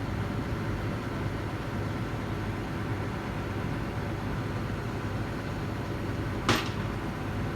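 Steady low machinery hum, with one sharp metallic knock about six and a half seconds in.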